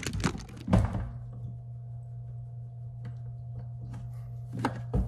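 Several knocks and thuds in the first second and again near the end, with a steady low hum between them.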